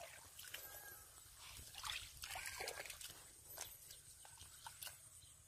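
Shallow muddy water sloshing and squelching as someone wades and feels through the mud by hand, with a few small splashes about two seconds in. A couple of faint short chirps sound behind it.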